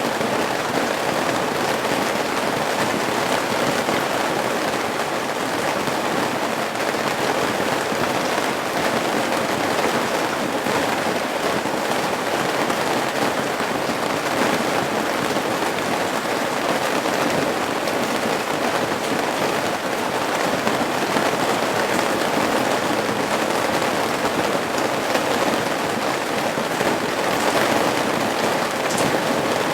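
Steady rain falling on a roof's eaves, a dense, even spread of drops with no letup.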